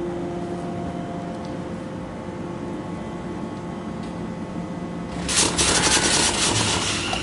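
Electric passenger train heard from inside the carriage after the doors close: a steady low rumble with a faint motor hum. About five seconds in, a louder rushing hiss sets in.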